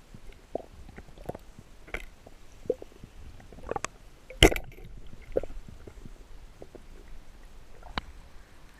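Muffled underwater sound: irregular bubbling blips and small clicks over a low hiss, with one sharp knock about halfway through.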